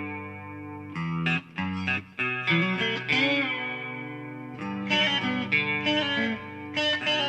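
Music: an electric guitar picking single notes that ring on under an effects unit, with no vocals.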